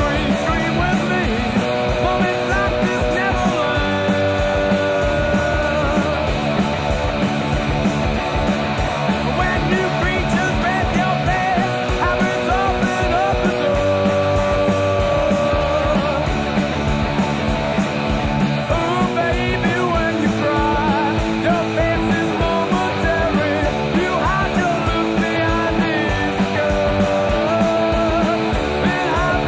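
Rock music, punk-style, with guitars and a steady drum beat.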